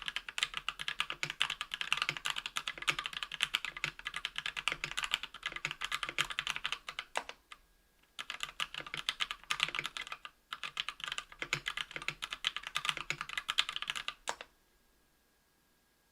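Fast typing on a 60% aluminium-plate keyboard with lubed Kailh BOX Red linear switches and PBT keycaps: a dense run of key clacks with short pauses about seven and ten seconds in. It stops a second or two before the end.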